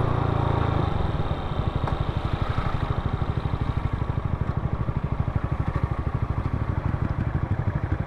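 Scooter engine heard from the rider's seat: steady at cruising speed, then about a second in the throttle closes and the engine note drops to a fast, even low pulse as the scooter slows to a stop.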